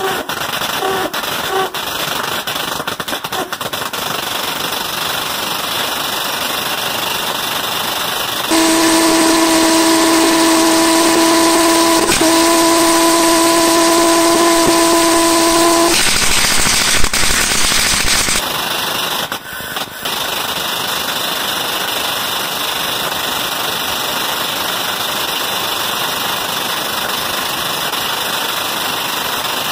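Tesla-valve pulse jet engine running with a steady rushing roar and a few sharp pops in the first seconds. About a third of the way in it turns into a louder, steady buzzing drone with a clear pitch for about seven seconds, then the roar returns.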